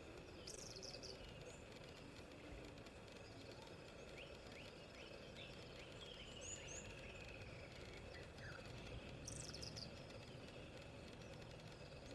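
Faint wild birdsong: scattered short chirps and high twittering, with a brief burst about half a second in and another about nine seconds in, over a quiet steady background.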